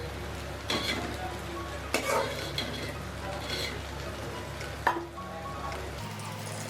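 Cut eggplant pieces frying in a pan, sizzling steadily while being stirred, with a few sharp clinks of the stirring utensil against the pan.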